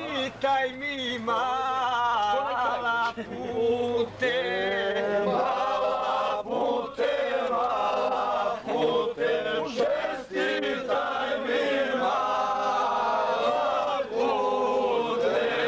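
A group of men singing together in chorus, long held lines with short breaks between phrases.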